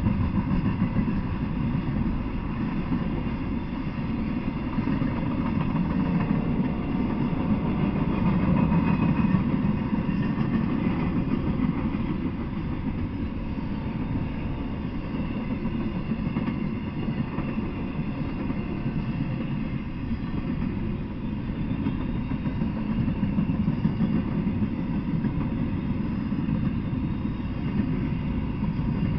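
Intermodal freight cars rolling past: a steady low rumble of steel wheels on the rails.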